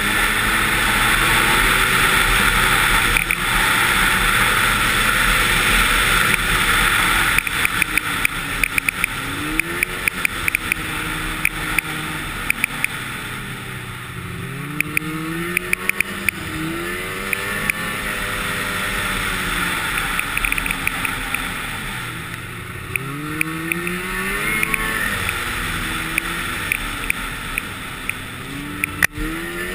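Snowmobile engine running under way, its pitch rising and falling several times as the throttle is opened and eased, over a steady rush of wind and track noise, with scattered sharp clicks.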